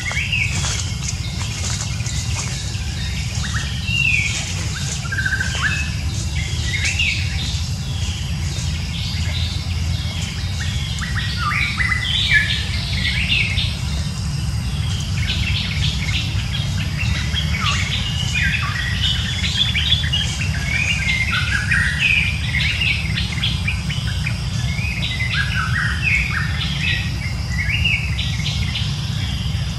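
Birds chirping in a continual stream of short, quick calls that sweep up and down in pitch, over a steady low rumble.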